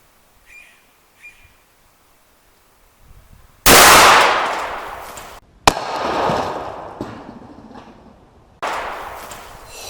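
A Harrington & Richardson 20-gauge single-shot slug gun fires a 1-ounce Brenneke slug: a very loud gunshot a little under four seconds in, trailing off in a long echo. Two more sudden loud bangs follow, about two and five seconds later, each trailing off the same way.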